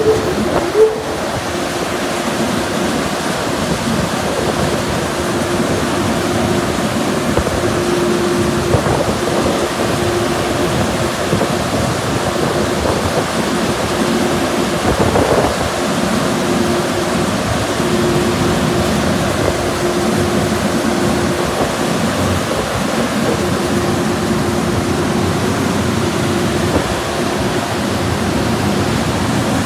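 Car wash air dryer blowers running: a steady, loud rush of air with a constant hum underneath.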